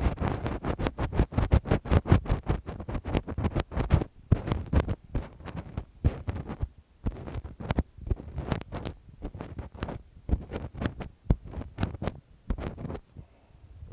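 Close-miked ASMR ear-cleaning sounds: quick, irregular scratches and rubs against the microphone. They come thick and fast for the first few seconds, then more sparsely with short pauses.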